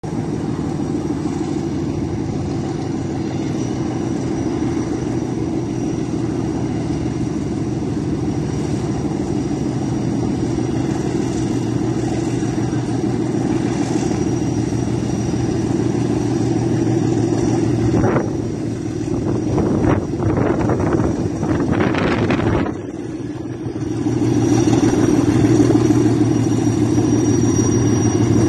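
Diesel engine of a DF7G-C locomotive working hard as it hauls a heavy aggregate train up a grade. It is a steady, deep drone that grows louder as the locomotive approaches, and is loudest near the end.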